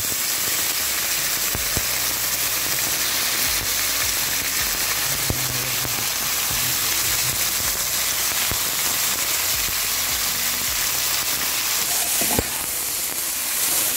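Shredded raw chicken breast frying in hot oil in a pan: a steady, dense sizzle with scattered small pops and spatters. About twelve seconds in, a metal spoon knocks against the pan and starts stirring.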